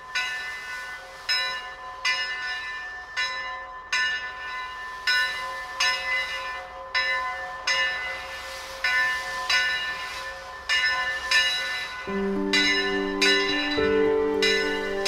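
Steam locomotive bell ringing at roughly one stroke a second as the Eureka & Palisades No. 4, a narrow-gauge steam engine, moves out of the roundhouse. Steady low held tones join in near the end.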